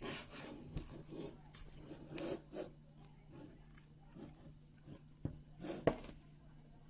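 Hands pulling and pressing soft yeast dough against a plastic bowl: irregular rubbing and scraping, with two sharp knocks a little after five seconds in, the second the loudest, over a steady low hum.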